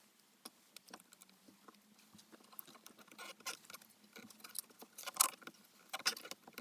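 Electrical tape being pulled off the roll and wrapped around a part, giving irregular crackling and small clicks of handling.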